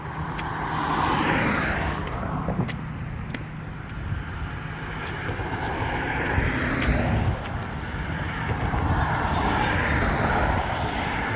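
Road traffic: cars passing by one after another, each swelling and fading over a steady low rumble of tyre and engine noise.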